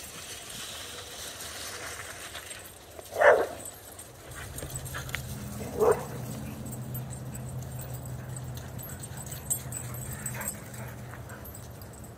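Dogs at play: one dog gives two sharp barks a couple of seconds apart, the first the louder, and a fainter yelp comes later. A low steady hum runs underneath from a few seconds in.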